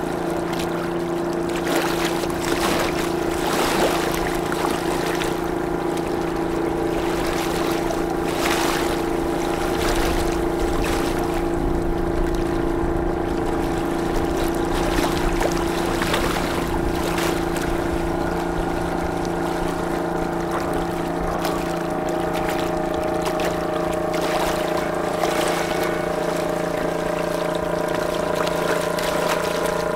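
Boat engine running with a steady drone that holds an even pitch throughout, with a few short rushes of noise over it.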